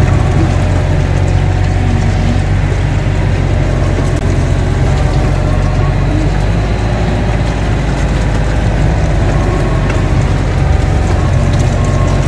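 Mini excavator's diesel engine running steadily, heard close up from the operator's seat while the machine holds a round hay bale up on its spear.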